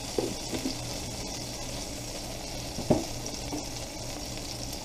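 Butter melting and sizzling in a hot wide metal pan: a steady, fairly quiet frying hiss, with a few brief faint sounds, the clearest about three seconds in.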